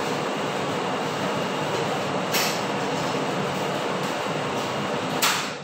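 Steady, loud rushing noise with a click about two seconds in and another near the end, after which the noise cuts off abruptly as if switched off.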